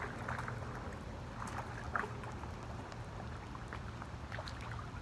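Outdoor wind rumbling on the microphone, with scattered faint ticks and one sharper click about two seconds in.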